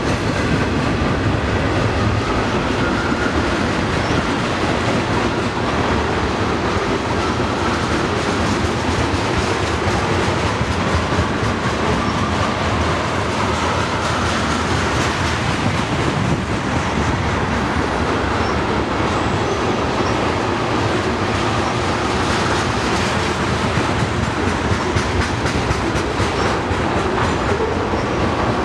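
Freight train of tank cars and boxcars rolling past close by: steel wheels running on the rails with a steady, loud rumble and clatter.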